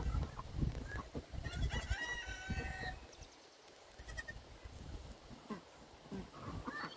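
Farmyard animal calls from baby goats and chickens: a few short, high calls about two seconds in, then fainter ones later.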